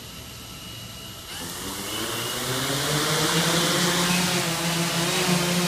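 Electric motors and propellers of a SynDrones X8 multirotor drone spinning up for lift-off. The buzzing whir rises in pitch and loudness about a second and a half in, then settles into a steady hovering hum.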